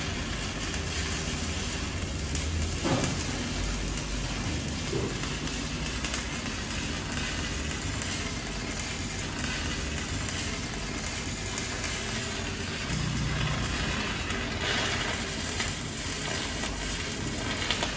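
Stick (shielded metal arc) welding arc crackling and sizzling steadily.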